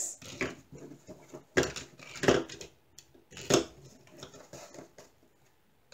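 Diamond-painted coasters clacking against each other and a clear coaster holder as they are stacked into it: a handful of separate clacks and clatters over the first four seconds.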